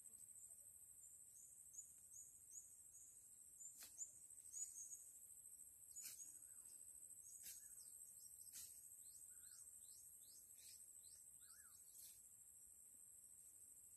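Faint outdoor ambience: a steady high-pitched insect drone, with short falling bird chirps repeated two or three times a second through most of it and a few soft clicks.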